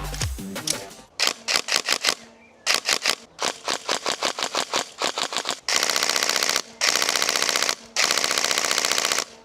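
Tokyo Marui EVOLT Recoil Shock electric airsoft gun firing: a run of quick single shots in small strings, then three full-auto bursts of about a second each. Music fades out during the first second.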